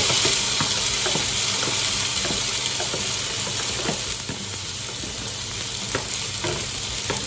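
Bacon fat sizzling in a frying pan as drained spaghetti is tipped in and stirred. Scattered light clicks of the utensil against the pan sound over the hiss, which eases slightly toward the end.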